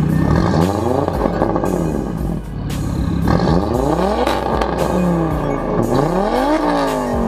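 B8 Audi's engine being revved in repeated blips, its pitch climbing and falling back several times.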